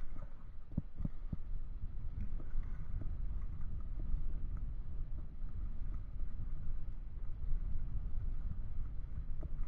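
Wind buffeting the camera microphone as a steady low rumble, with a few short knocks about a second in.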